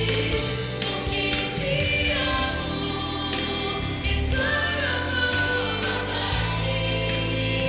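Choir singing, holding long chords over a steady low accompaniment.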